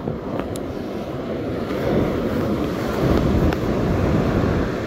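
Wind buffeting the microphone over surf breaking on the shore: a heavy, gusting rumble that swells about halfway through, with a few faint clicks.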